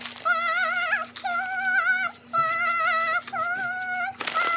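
A high voice singing a run of about five long held notes, each wavering strongly in pitch, over a faint steady low hum.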